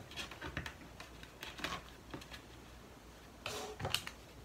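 Hands handling and tugging monk's cloth over a wooden frame on a countertop: soft cloth rustling with scattered light clicks and knocks, and a brief louder rustle followed by a sharp click about three and a half seconds in.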